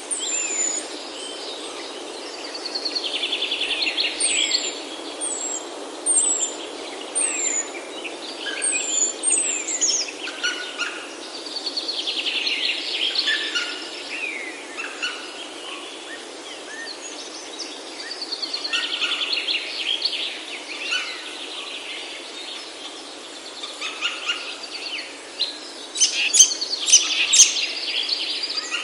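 Several wild birds singing and calling in a mountain oak forest: rapid trills that come back three times, a run of short high downslurred whistles early on, and a cluster of sharp high calls near the end, over a steady low hiss.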